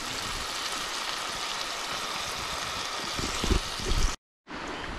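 Ground beef and onions sizzling in a skillet over a campfire: a steady hiss, with a few low knocks about three seconds in. The sound cuts out briefly near the end.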